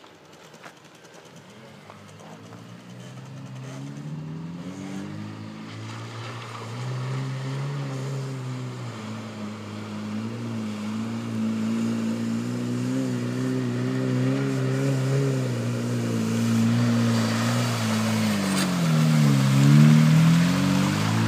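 Off-road 4x4's engine working as it wades through a flooded pond toward the listener, growing steadily louder, its revs rising and falling. Near the end, as it drives out and passes close by, the engine pitch dips and climbs again over a rising hiss of water and mud.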